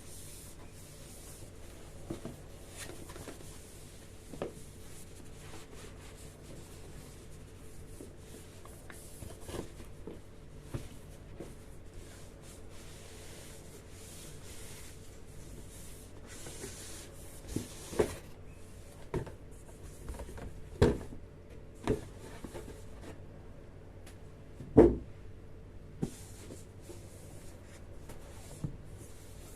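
Packaging being handled during an unboxing: rubbing and rustling, with scattered knocks and taps, the loudest about 25 seconds in.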